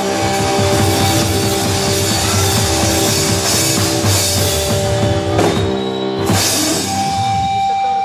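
Live rock band playing: electric bass and guitar over a drum kit with cymbals, ending on a single high note held through the last second or so.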